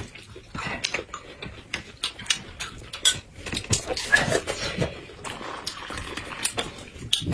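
A crisp apple being bitten into and chewed close to the microphone: a string of sharp crunches and wet mouth sounds.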